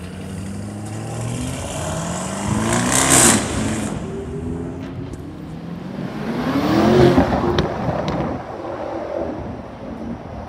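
Lamborghini Urus twin-turbo V8 accelerating hard twice, each time with its engine note rising in pitch. The first run peaks about three seconds in; the second, louder run peaks about seven seconds in.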